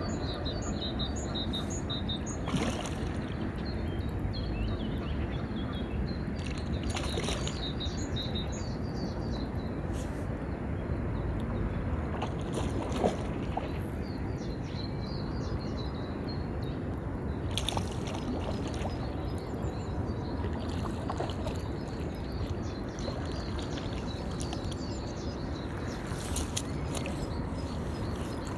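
Shallow river water sloshing and splashing, with several sharper splashes, as a hooked mirror carp thrashes beside a wading angler and is drawn into the landing net. Small birds twitter through the first half.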